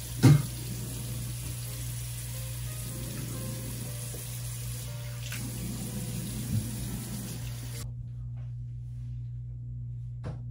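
Bathroom sink faucet running steadily while someone rinses at the basin after brushing their teeth, shut off about eight seconds in. A sharp knock sounds just after the start.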